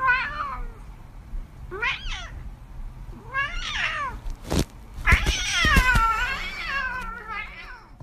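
Ginger cat meowing: three short meows that rise and fall, about a second and a half apart, then one long, wavering meow about five seconds in. A few soft thumps come just before and at the start of the long meow.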